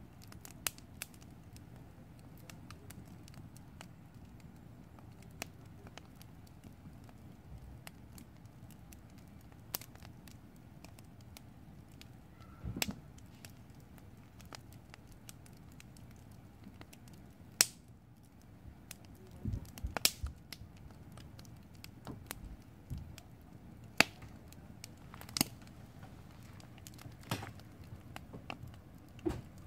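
Wood campfire crackling in a steel fire ring: sharp pops at irregular intervals, a few louder ones in the second half.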